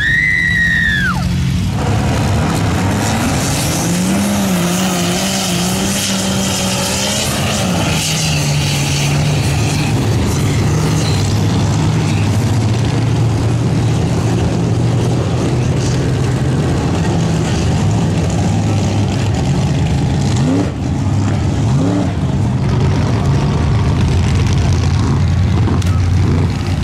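A woman's loud yell in the first second or so, then a lifted 4x4 mud truck's big engine running hard at high revs, the pitch climbing and wavering before settling into a steady drone, over the constant hiss of mud and water spray. A couple of short revs rise briefly near the end.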